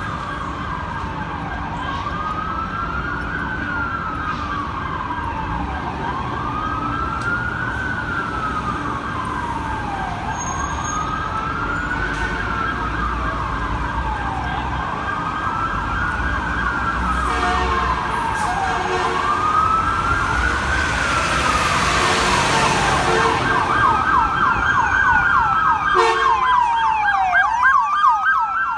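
Emergency vehicle sirens: a wail rising and falling about every four seconds, joined about two-thirds of the way in by a faster yelp, with short blasts of an air horn in the second half. The sirens grow louder as the vehicles approach.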